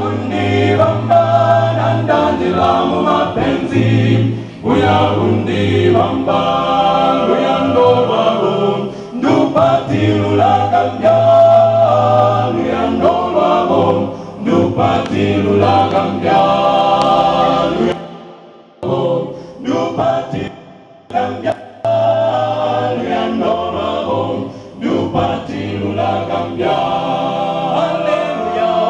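Gospel choir singing a Tonga-language song in several-part harmony, with a brief dip in loudness about two-thirds of the way through.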